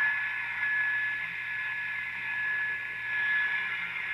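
Caprice AM radio's speaker hissing with static, with a steady high whistle over it: interference that the owner takes to be coming from the video camera.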